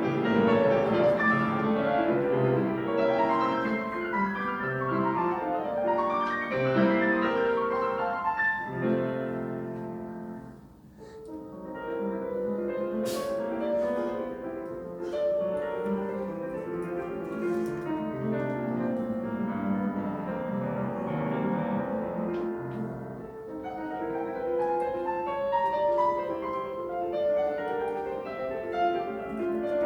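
Solo piano playing a classical piece: flowing runs of notes, with a brief softer moment about a third of the way through before the playing builds again.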